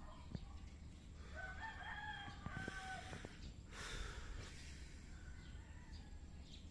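A rooster crowing once, faint, starting about a second in and lasting about two seconds, followed by a brief rush of noise.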